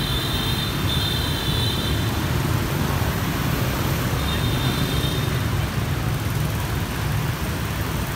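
Steady traffic noise from a dense stream of motor scooters passing close by, the low hum of many small engines blending together. A thin high tone sounds for the first couple of seconds and again briefly about four seconds in.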